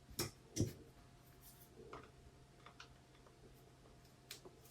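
Faint scattered clicks and taps of a brake master cylinder's reservoir lid being unscrewed and lifted off, with two sharper clicks within the first second.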